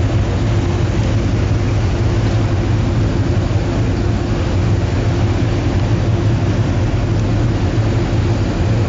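Steady low machinery drone of a warship under way, a constant hum with rushing wind and sea noise over it, with no change in level.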